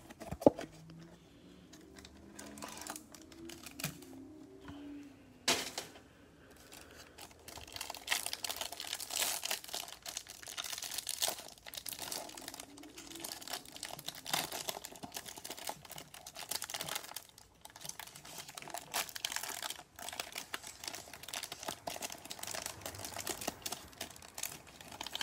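Clear plastic wrapper around a stack of trading cards crinkled and torn open by hand, a dense run of crackling from about eight seconds in. Before that it is quieter, with one sharp click about five seconds in.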